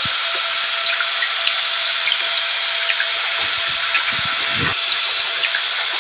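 Steady rain mixed with the constant whine of a running vacuum cleaner motor, a dense hiss with a few held tones and scattered small drop-like ticks.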